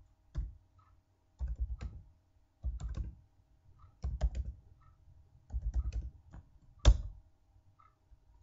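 Computer keyboard typing in short bursts of keystrokes with pauses between, and one sharper, louder key press about seven seconds in.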